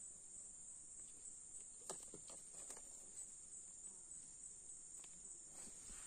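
Faint, steady high-pitched drone of insects, with a few soft clicks and rustles scattered through it.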